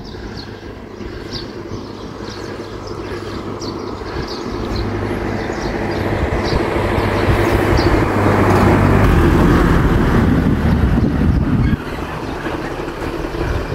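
A motor vehicle's engine and road noise growing louder to a peak about two thirds of the way through, then dropping off suddenly. Short high chirps repeat through the first half.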